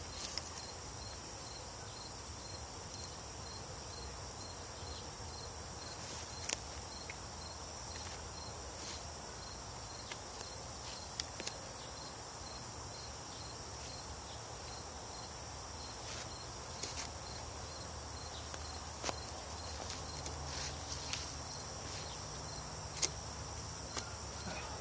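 Crickets and other insects chirping steadily, a regular high pulsing chirp over a constant high buzz, with a few faint scattered ticks and knocks.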